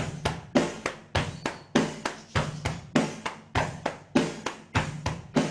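Steady rock drum beat used as the backing rhythm for cup-and-table body-percussion exercises: a strong hit about every 0.6 s with lighter hits between.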